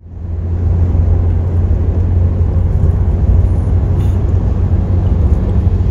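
Loud, steady low rumble with a fainter hiss above it, fading in over about the first second and then holding steady.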